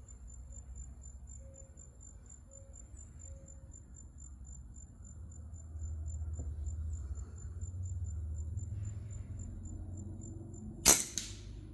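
Steady high-pitched insect chirping in a fast even pulse over a low wind rumble, with a single sharp gunshot about a second before the end.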